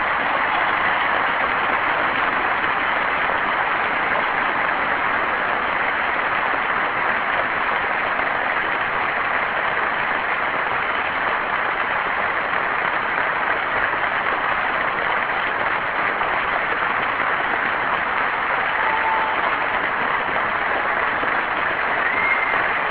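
Audience applauding steadily, a long ovation.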